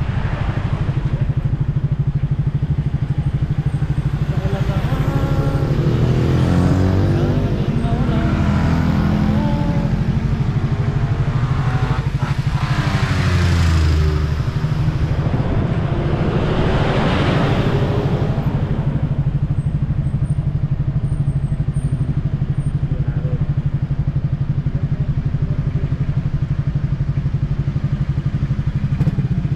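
Yamaha XSR155's single-cylinder engine heard on board, running at low speed in traffic. Its pitch rises and falls a few times in the first half as the rider works the throttle, then it settles to a steady low running.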